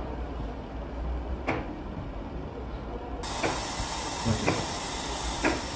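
Kitchen knife slicing a peeled potato, the blade knocking on a plastic cutting board a handful of times at uneven intervals. A steady hiss comes in suddenly about three seconds in.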